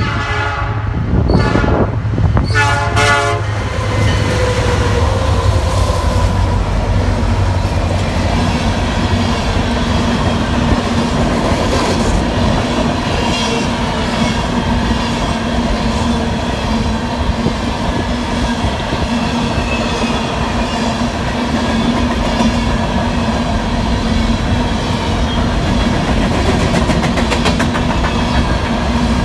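Nathan Airchime P5 horn on a BNSF EMD SD70MAC locomotive sounding two short chord blasts in the first few seconds. The train then rolls past with a steady heavy rumble and the clickety-clack of wheels over rail joints.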